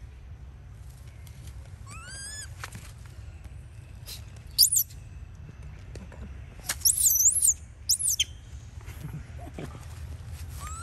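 Macaque monkeys squealing: a rising squeal about two seconds in, then short, very high shrieks that sweep up and down, the loudest run about seven seconds in.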